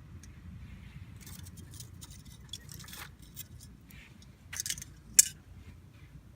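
Pine cone burning on hot charcoal, crackling with scattered sharp snaps and one loud pop about five seconds in, over a low rumble.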